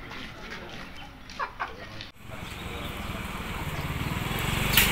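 Faint outdoor background with scattered distant voices. About two seconds in, a steady low engine hum sets in and grows gradually louder, with one sharp click near the end.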